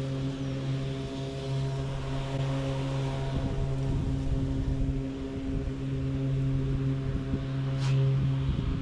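Toro Revolution GrandStand battery-powered stand-on mower running while mowing: its electric blade motors give a steady hum, with no engine.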